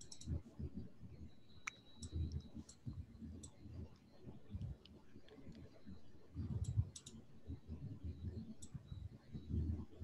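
Computer mouse clicking as text is selected in a document, a scattering of sharp clicks over a low, muffled rumble that comes and goes.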